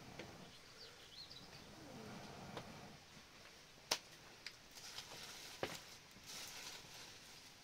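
Dry leaves and twigs rustling as they are piled by hand for kindling, with two sharp snaps, about four and five and a half seconds in, the first the loudest. A bird chirps faintly about a second in.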